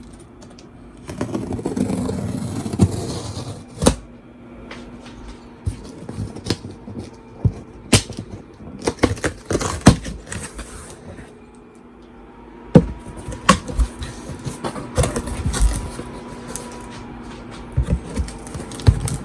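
A cardboard shipping box being handled and opened: irregular scraping, knocks and sharp clicks, with a longer scraping stretch near the start.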